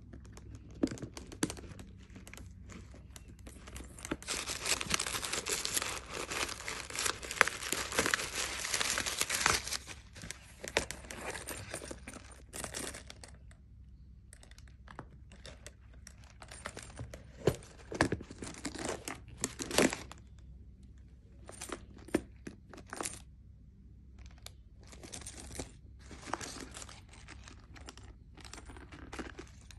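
A leather handbag being handled: a long stretch of rustling and crinkling between about four and ten seconds in, then scattered clicks and taps from its metal clasp and chain strap, with short rustles.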